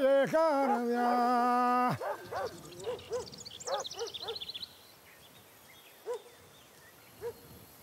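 A man singing a slow, drawn-out melody with no accompaniment, ending on a long held note about two seconds in. After that, a few short animal calls and a quick run of high chirps, fading to faint outdoor quiet.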